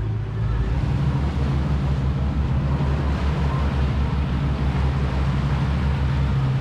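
Sportfishing boat's engine running steadily underway, a low pulsing drone with wind and water noise over it.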